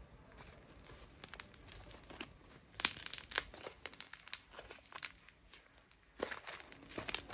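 Shaving-foam glitter slime being squeezed and kneaded in the hands, popping and crackling in sharp clicks as air pockets in it burst. The pops come in clusters about a second in, around three seconds in, and again near the end.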